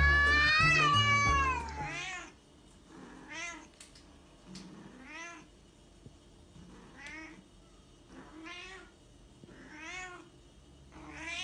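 A grey-and-white cat gives one long, loud meow that rises and then falls. Then a long-haired tabby cat gives a string of about six shorter, quieter meows, one every second and a half or so.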